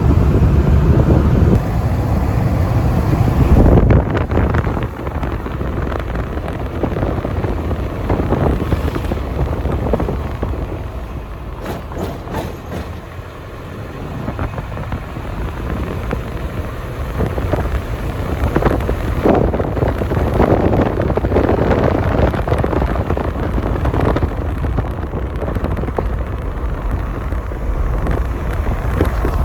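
Road vehicle on the move: engine and road noise with wind buffeting the microphone. It eases for a few seconds about halfway through, then builds again.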